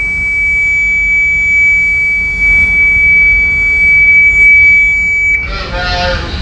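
Ship's water ingress alarm buzzer sounding one steady high-pitched tone, set off by a test sensor wetted with seawater; it cuts off abruptly about five seconds in. A low engine rumble runs underneath.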